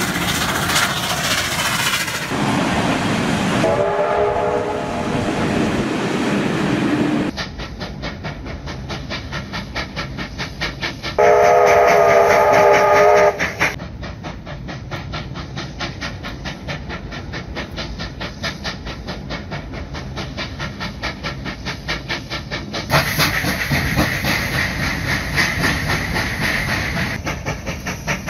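Steam locomotive working hard, with a rapid, even beat of exhaust chuffs. It gives one loud whistle blast of about two seconds near the middle. Earlier, another whistle or horn sounds for a few seconds as trains pass.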